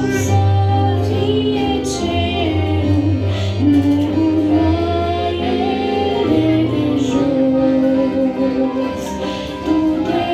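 A woman singing a Christian song of praise into a microphone, her voice amplified over an instrumental accompaniment of sustained chords and a steady low bass line.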